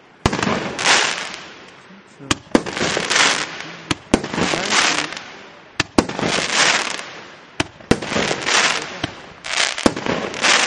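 A 1.2-inch, 20-shot fireworks cake firing shot after shot, about one a second. Each shot is a sharp bang followed by about a second of glittering crackle as the stars burst.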